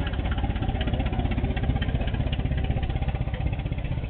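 Engine of an antique Ford open touring car running at low speed, a steady low chugging with fast, even pulses as the car drives past.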